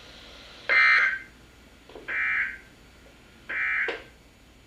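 NOAA Weather Radio SAME end-of-message code: three short, raspy digital data bursts about a second and a half apart, signalling the end of the Required Weekly Test message.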